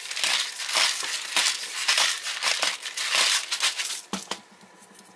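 A hand-twisted pepper grinder cracking black peppercorns in a run of short crunchy rasps, about two or three a second. It stops a little before the end, followed by two light knocks.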